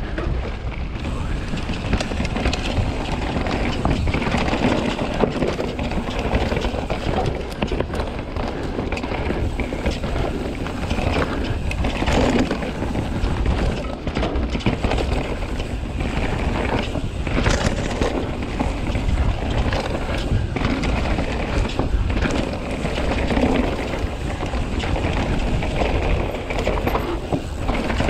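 Commencal Meta mountain bike running down dry, dusty dirt singletrack: the tyres roll and crunch over the dirt, and the bike rattles over bumps in many small knocks. Wind noise on the camera microphone runs underneath.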